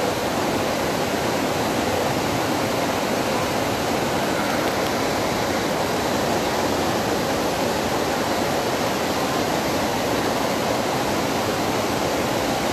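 Waterfall: falling water making a loud, steady rushing noise that holds even throughout.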